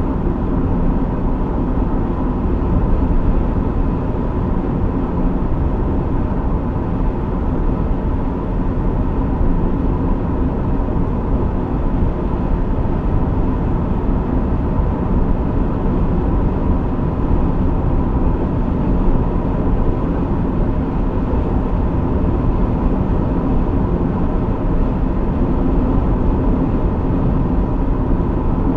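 Honda CR-V 1.6 i-DTEC four-cylinder turbo-diesel SUV driving at a steady pace: an even rumble of engine, tyres and road with no revving.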